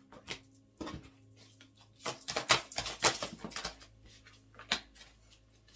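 Oracle cards being handled: a scatter of soft clicks and flicks, densest in a quick run about two seconds in, over a faint steady drone.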